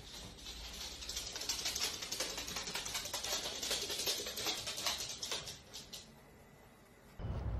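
A corgi's claws clicking quickly on a laminate floor as it trots along, dying away after about five seconds. Music starts just before the end.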